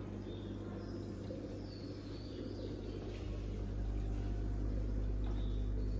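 Steady low hum of aquarium equipment, growing a little louder about halfway through, with faint high chirps now and then.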